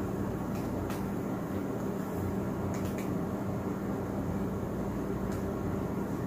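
Steady machine hum with one constant low tone under an even background noise, and a few faint clicks.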